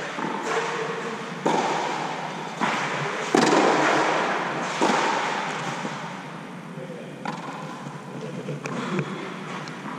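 Tennis ball struck back and forth by rackets in a rally, with bounces, each sharp hit echoing for about a second inside an inflatable air-dome hall. The hits come about once a second for the first five seconds and are softer after that.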